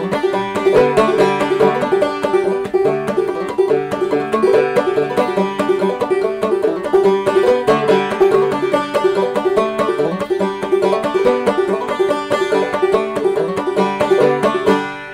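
Gold Tone five-string banjo played clawhammer (frailing) style: a quick, driving old-time tune of rapid picked notes and brushed strums. Near the end the playing stops and the last notes are left ringing.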